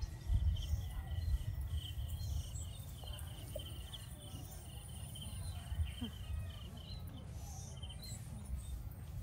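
Insects chirping in a quick, even rhythm of several short chirps a second, thinning out about halfway through, with a thin high steady buzz above. Beneath them runs a low, uneven rumble.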